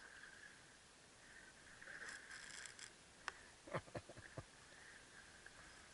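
Faint sounds of a baitcasting reel being cranked against a hooked fish. There is a brief buzz about two seconds in, then a few sharp clicks and knocks a little later.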